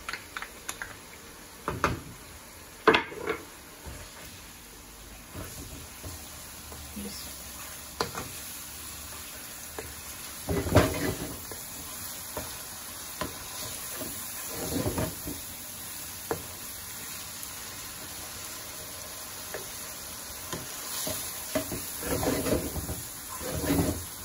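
Boneless chicken pieces sizzling in hot fat in a nonstick frying pan while a slotted wooden spatula stirs and scrapes them. A few sharp taps come in the first few seconds as the spatula knocks ginger-garlic paste out of a small cup, and the stirring grows louder in bursts later on.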